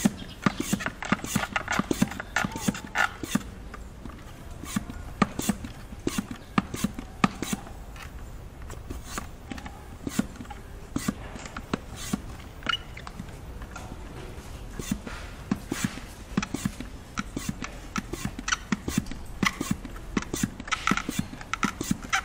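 Hand-pump vacuum oil extractor being worked, its plunger handle stroked up and down with repeated clicks and knocks, several a second, as it sucks engine oil up through the dipstick tube.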